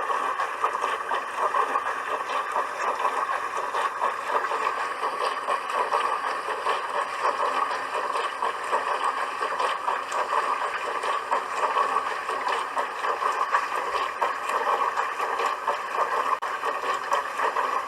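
Dishwasher running mid-wash: a steady rushing, splashing noise of water spraying inside the tub, with no pauses or changes.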